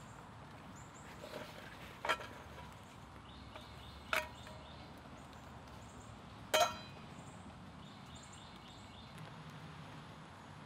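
Three sharp metallic clinks about two seconds apart, the last ringing briefly: a wire grill grate being settled over campfire coals and a black steel frying pan set down on it. Birds chirp faintly in the background.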